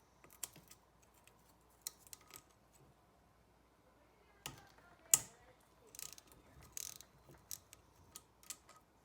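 Hand tools working on a motorcycle engine: a socket ratchet and small metal parts clicking and clinking in scattered sharp clicks, with one louder clack about five seconds in.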